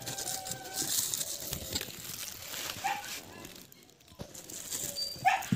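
Plastic wrap and cardboard boxes rustling as a new filter is unpacked by hand, with two short animal calls, one about three seconds in and a louder one near the end.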